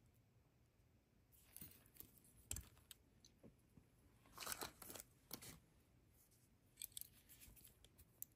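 Faint handling of small beads and jewellery pieces: a few sharp clicks and short rustles and scrapes, the busiest stretch about halfway through.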